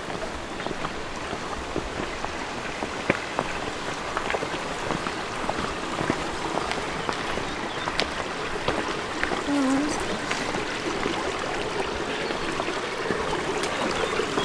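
Running water rushing steadily in a stream or channel beside the path, growing louder towards the end, with footsteps ticking on the lane.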